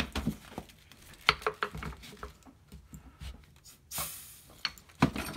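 Tools and parts knocking on a workbench, then about four seconds in a short hiss of compressed air from a blow gun held to a Suzuki SX4 front brake caliper's fluid port to pop the piston out. A sharp knock follows about a second later.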